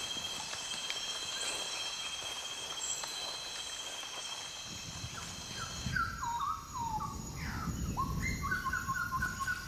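Night rainforest ambience: a steady, high-pitched chorus of insects. About six seconds in it changes to a series of short whistled calls that step down in pitch and repeat quickly, over a low rumble.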